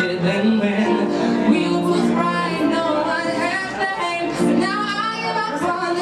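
A man singing a pop ballad live into a microphone, with piano accompaniment.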